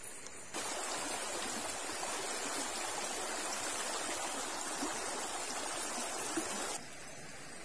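Shallow river water rushing over rocks: a steady rush that cuts in about half a second in and cuts off abruptly near the end.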